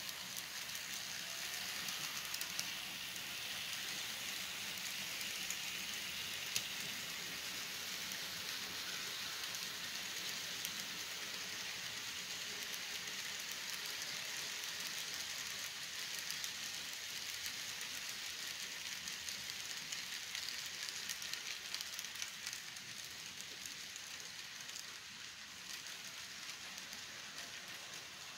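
Model freight train rolling past on its track: a steady rattling hiss of small metal wheels running over the rails and joints, dense with fine clicks.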